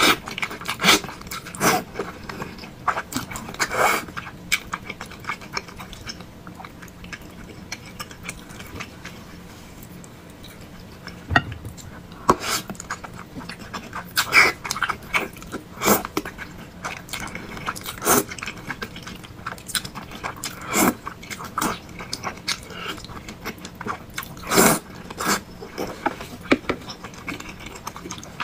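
Close-miked eating of thick noodles and meatballs: wet chewing and biting, with sharp mouth smacks and clicks coming in bunches and a quieter few seconds about a third of the way in.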